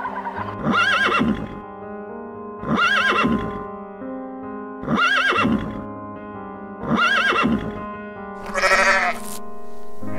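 Background music with sustained notes, over four identical arching animal calls spaced evenly about two seconds apart, then a goat bleating with a wavering tone near the end.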